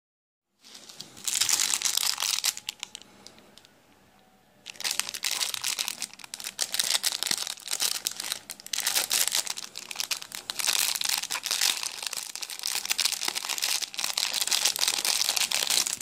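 Thin clear plastic bag crinkling and rustling as hands open it and pull out a metal pendant necklace. A short burst of crinkling near the start, a brief lull, then steady crinkling from about five seconds in that stops abruptly at the end.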